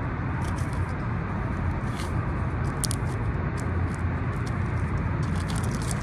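Steady low outdoor rumble with scattered small clicks and scrapes of scissors snipping at a dead bird's feathers close to the microphone.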